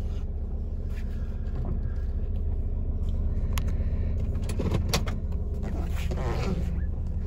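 Turbocharged 1.8-litre four-cylinder engine of a VW New Beetle 1.8T running at a steady idle, heard as a low rumble from inside the cabin, with a couple of sharp clicks about halfway through.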